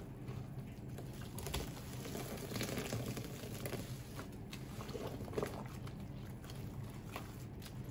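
Small, irregular wet clicks and squelches of a thick, watery paste being squeezed and worked, over a steady low hum.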